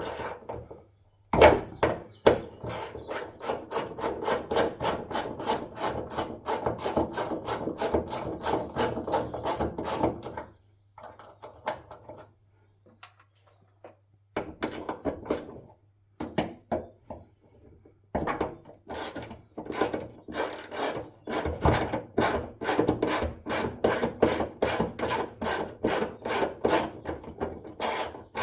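Socket ratchet clicking in quick, even runs, in two long spells with a pause in the middle, as bolts on the bonnet hinge are worked loose.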